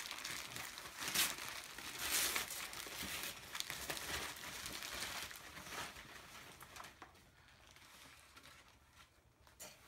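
Gift-wrapping paper being torn off a present and crumpled by hand: ripping and rustling in bursts, strongest in the first couple of seconds and dying away after about six seconds.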